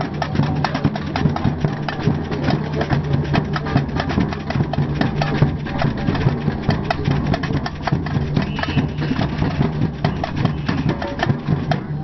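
Samba batucada percussion band playing a dense, steady rhythm on surdo bass drums and smaller percussion, with a steady low hum underneath.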